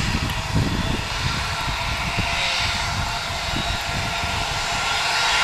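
Airbus A319 jet engines running at low taxi thrust, a steady whine and rush that grows slightly louder near the end as the airliner rolls toward the microphone, with irregular low buffeting of wind on the microphone.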